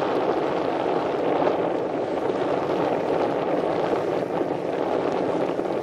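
Steady wind rushing over the microphone on a blustery day, an even noise with no let-up.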